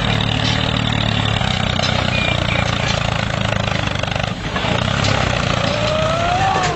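A vehicle's motor running steadily: a low, even hum under a broad hiss, with a faint rising tone near the end.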